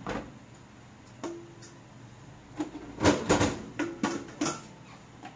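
Kitchenware clattering as bowls and dishes are handled at a kitchen sink and counter. There is a sharp knock at the start and another knock with a short ring a little past a second in. A cluster of knocks and clatters with brief ringing follows from about three to four and a half seconds in.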